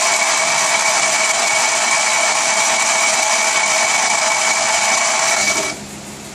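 Electric starter motor cranking a 1959 Fiat 500's 479 cc air-cooled two-cylinder engine, a steady whine that cuts off about five and a half seconds in. The engine does not fire, because the ignition has not been switched on.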